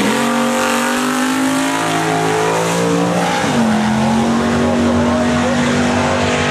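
1955 Chevy drag car's engine at full throttle, pulling away down the drag strip: the pitch climbs, dips once about three and a half seconds in at a gear change, then holds steady.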